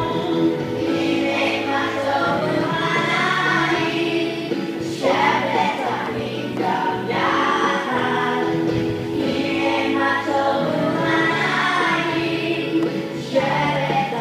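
A choir singing a song over sustained accompaniment, continuous throughout.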